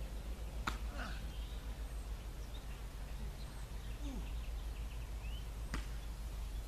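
Open-air ambience: a steady low rumble with scattered bird chirps, one rising chirp near the end, and two sharp clicks, one just under a second in and one near the end.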